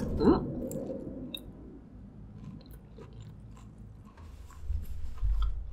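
A person chewing king crab meat close to the microphone, with scattered soft mouth clicks and a few low thuds near the end. It opens with a short vocal sound.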